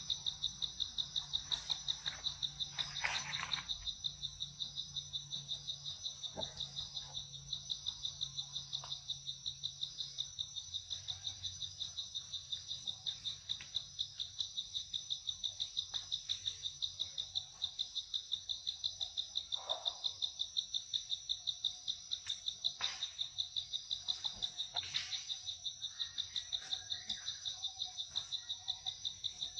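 Insects chirping steadily in a high, even pulse of about three chirps a second, with a few faint rustles and snaps now and then.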